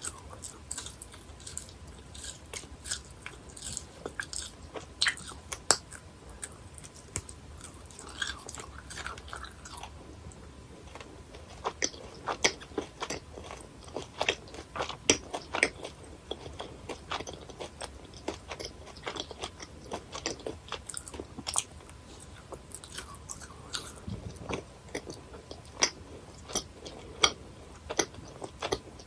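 Close-miked chewing and biting of chewy gummy jellies: irregular sticky clicks and smacks of the mouth working the candy, heaviest in the middle and later part.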